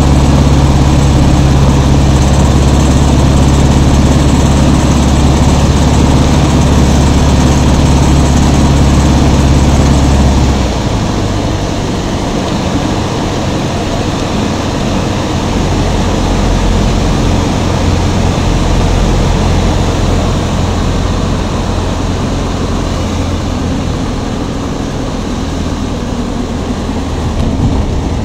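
Light aircraft piston engine running with a loud, steady low drone, then dropping sharply in level about ten seconds in to a lower, noisier rumble. The engine has a burst cylinder and is losing revs.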